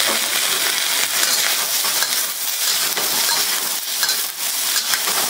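Broccoli and sliced onion sizzling in hot oil in a wok over high heat, stirred with a ladle that scrapes and clinks against the wok.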